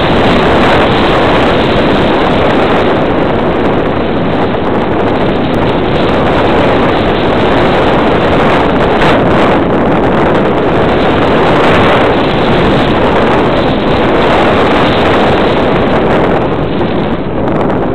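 Loud, steady wind rushing and buffeting over the microphone of a camera in flight.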